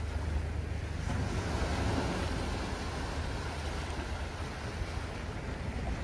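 Sea waves washing in over and around shoreline rocks, a steady surf wash that swells slightly about a second in. Wind on the microphone adds a low rumble underneath.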